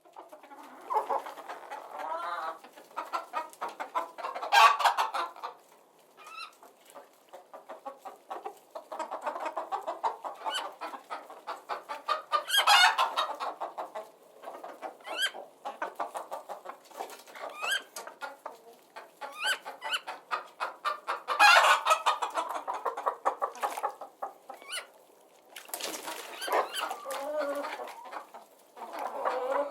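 Chickens clucking in rapid runs of short calls, with brief louder squawks every several seconds.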